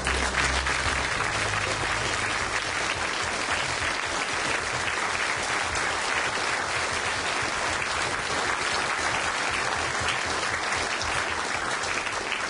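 A large lecture-theatre audience applauding steadily.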